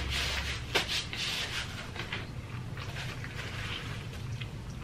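Close-up chewing of crispy fried chicken, irregular crunching and mouth noises, with one sharper crunch about three-quarters of a second in.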